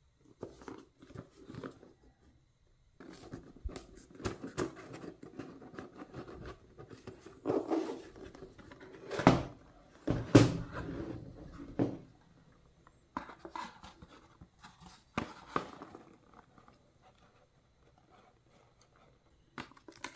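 A rigid cardboard gift box being handled and opened by hand: the lid rubbing and scraping as it slides off the base, with scattered soft knocks and taps and two louder knocks about halfway through.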